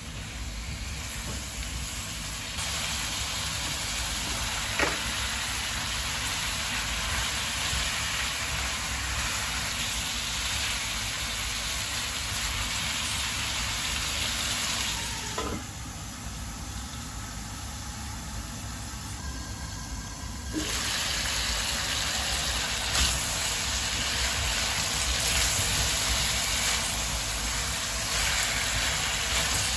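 Chicken pieces and onions sizzling in a nonstick frying pan as they are stirred with a plastic spatula, with a few light clicks of the spatula against the pan. The sizzle drops for a few seconds about halfway, then comes back louder.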